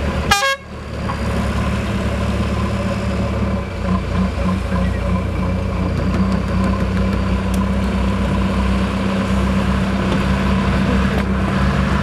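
A vehicle horn toots once, briefly, just after the start, then heavy diesel engines run steadily at close range: a backhoe loader working with a bus beside it. The engine sound grows a little louder near the end.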